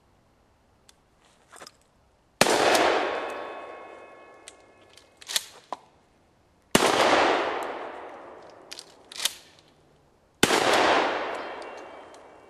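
Three shots from a Remington 870 pump-action shotgun, about four seconds apart, each echoing and dying away over two to three seconds. Between the shots come sharp clacks of the pump being worked to clear the empty and chamber a fresh shell, and the first and last shots carry a faint ring from the struck saw-blade targets.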